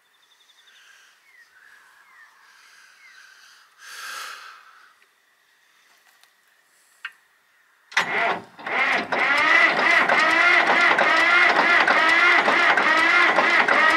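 About eight seconds in, a starter motor begins cranking the supercharged Cummins diesel tractor engine: a loud, steady churning with an even pulse from the compression strokes. The engine turns over without catching, which the crew put down to the fuel system sucking dry.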